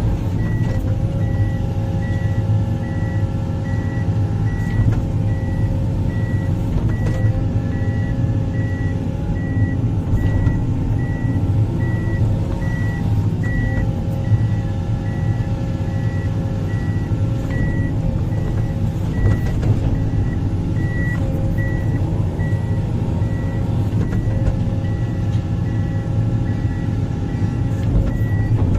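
Heavy earthmoving machinery's diesel engine running steadily, with a backup alarm giving an unbroken train of evenly spaced high beeps.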